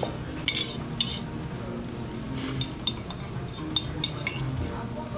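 Metal cutlery clinking and scraping against plates, a run of short sharp clinks every fraction of a second.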